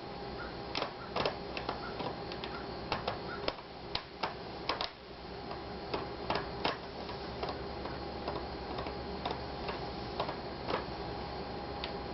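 Irregular small clicks and taps of a screwdriver and screws against a laptop's plastic case and metal hinge, as hinge screws are worked. The clicks come thick in the first seven seconds and thin out after, over a steady low hum.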